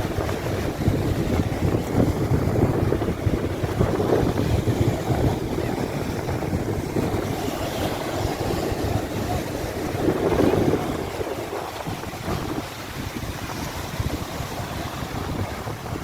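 Sea surf with wind buffeting the microphone: an uneven rumbling rush that swells about ten seconds in and eases after.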